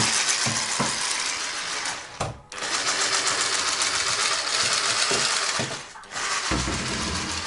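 Hand-held immersion blender running on low speed, mixing batter with chopped nuts in a bowl. The motor whirs steadily, dropping out briefly about two seconds in and again around six seconds, with a few dull low knocks just after the second break.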